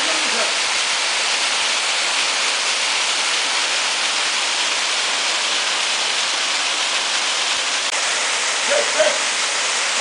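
Waterfall pouring steadily over rocks into a pool: an even, unbroken rush of water.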